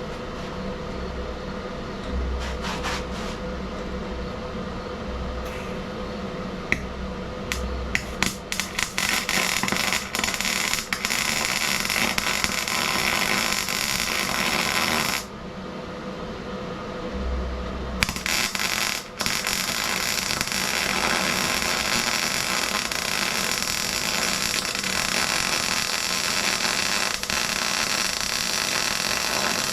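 MIG welder arc crackling and hissing as it lays weld beads with .030 wire under 75/25 argon-CO2 gas, set at about 22 volts. It starts about eight seconds in with short stuttering bursts, becomes steady, stops for about three seconds midway, then runs continuously again.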